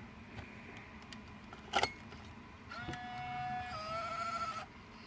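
Sony Digital8 camcorder's tape mechanism: a sharp click, then a motor whine held for about a second that drops a little in pitch and wavers before cutting off.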